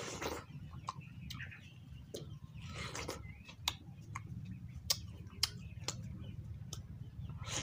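Watermelon being bitten and chewed close to the microphone: wet smacking and crunching clicks at an irregular pace, with a juicy bite near the start and another about three seconds in, over a steady low hum.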